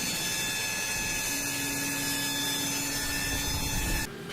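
Steady mechanical whine and hiss from running machinery, with several high steady tones; a lower hum joins about a second in, and it all cuts off abruptly near the end.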